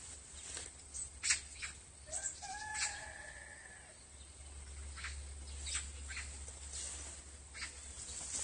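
Scattered soft clicks and rustles from handling fishing tackle at the waterside brush, with one short bird call about two seconds in.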